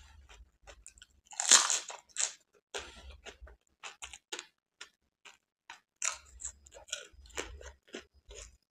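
Crisp, hollow pani puri shells being bitten and chewed close to the microphone. One loud crunch comes about one and a half seconds in, followed by a run of smaller crackling chewing crunches.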